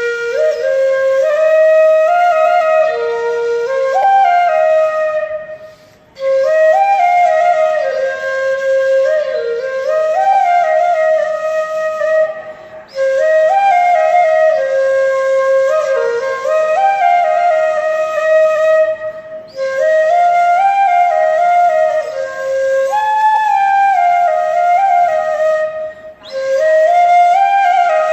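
A wind instrument plays an Aagri-Koli folk song melody as a ringtone. The same phrase repeats about every six to seven seconds, with a short break between repeats.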